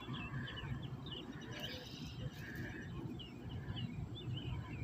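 Many small birds chirping in quick, irregular notes over a low, steady rumble.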